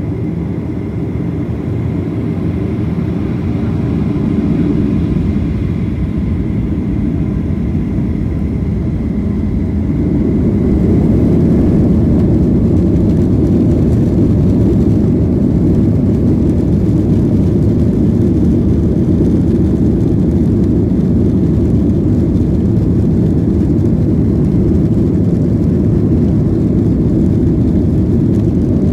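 Boeing 737-800's CFM56 jet engines and the airframe giving a steady low rumble heard inside the passenger cabin as the plane rolls along the ground, with a faint high whine over it for the first ten seconds. The rumble grows a little louder about ten seconds in, then holds steady.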